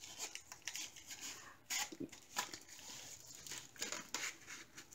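Faint rustling and crinkling of a fabric hanging organizer with clear plastic pockets, handled as a wooden stick is pushed through its top sleeve, with a few light taps and clicks.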